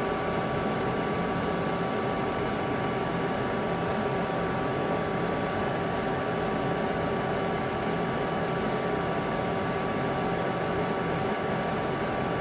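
Steady whirring hum of a cooling fan, most likely the fan in the Xbox 360 power supply that runs the 12 V soldering iron. It holds a few steady tones under an even hiss and does not change while the cell terminal is being tinned.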